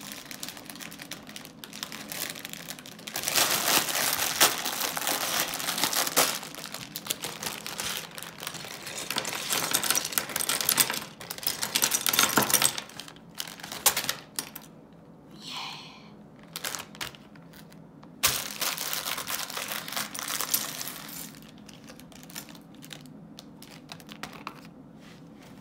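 Crinkling of a plastic LEGO parts bag being opened and handled, with many small plastic LEGO bricks clattering as they are poured out and spread across a tabletop. It comes in a few busy bouts and grows quieter near the end.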